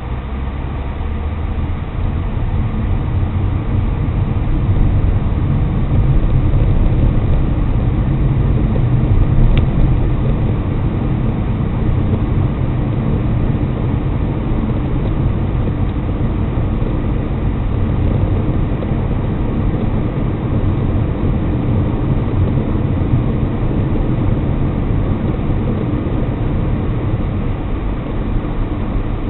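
Steady low rumble of road and engine noise from a car driving, heard inside the cabin. It grows a little louder over the first several seconds, then holds steady, with one faint click about ten seconds in.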